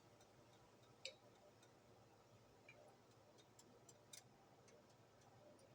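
Near silence: faint room tone with a few scattered light clicks, the sharpest about a second in and another around four seconds in.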